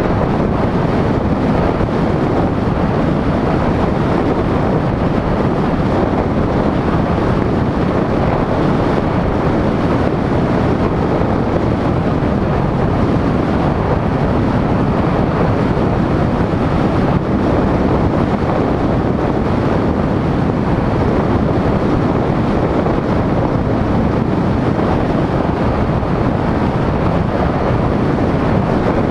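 Steady wind buffeting on the microphone mixed with road and tyre noise from a vehicle driving at speed.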